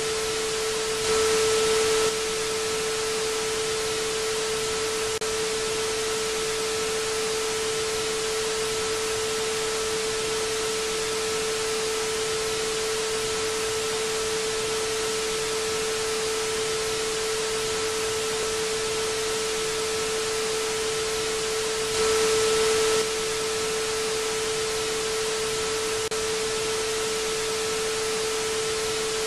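Analog television static: a steady, even white-noise hiss with a constant tone running beneath it. It swells briefly louder twice, each time for about a second, once near the start and once about two-thirds of the way through.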